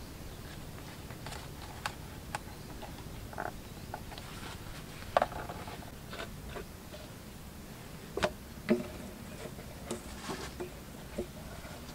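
Scattered light clicks and crackles of a clear plastic bottle being handled and turned in the hands. The sharpest click comes about five seconds in, and two more come close together around eight seconds.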